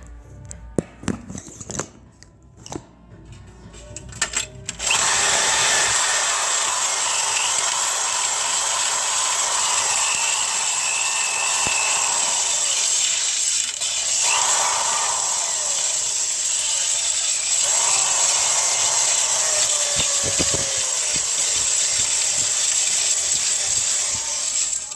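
Power drill spinning a wire brush against a metal baking pan, a loud steady whirring scrub that starts about five seconds in and stops just before the end. Before it, a few clicks and knocks as the drill and pan are handled.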